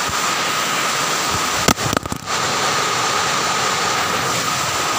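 Steady rushing noise with a thin steady whine in it, interrupted about two seconds in by a couple of knocks and a brief dip, as from a phone being handled.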